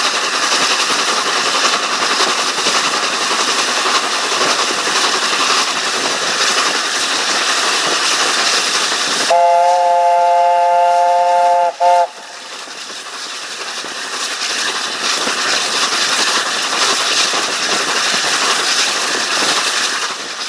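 A steam-hauled train running at speed, heard from an open carriage window: a steady rush of wheel and rail noise with wind on the microphone. About nine seconds in, the locomotive sounds its three-note chime whistle in one long blast of about two and a half seconds, then a very short toot. Afterwards the running noise dips and gradually builds back up.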